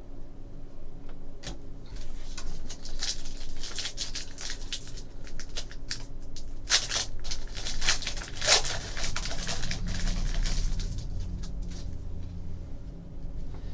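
Trading-card pack wrapper crinkling and tearing open, with crackles and clicks that are loudest in the middle, then cards being handled and flicked through. A low rumble underneath near the end.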